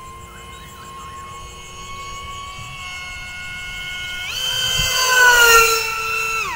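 Brushless 2826 2700 kV motor spinning a 5x5 propeller on a foam RC Sukhoi model jet in flight, giving a steady high whine. About four seconds in its pitch jumps up as the throttle opens, and it is loudest as the plane passes close. Near the end the pitch drops sharply as the throttle is cut back.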